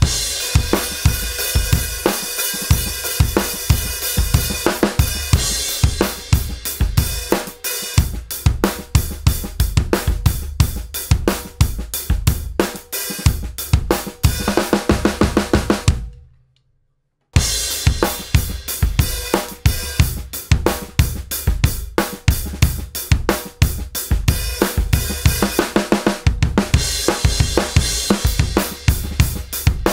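Full drum kit played in a groove: a 20-inch Rogers Powertone bass drum with loose heads tuned a whole step apart, sounding big and fat with some punch, under a brass snare, hi-hat and cymbals. The playing cuts off for about a second a little past halfway, then resumes.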